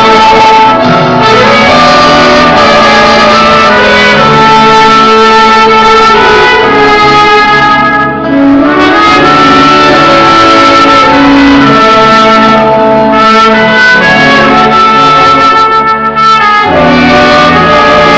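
Instrumental passage of gospel band music, with brass horns holding the melody notes over the accompaniment and no singing. The music dips briefly twice, about eight and sixteen seconds in.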